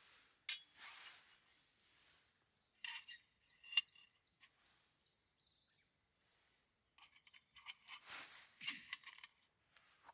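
Light clinks and clicks of camp cookware and utensils being handled: a few separate sharp knocks, then a busier cluster of small clicks near the end.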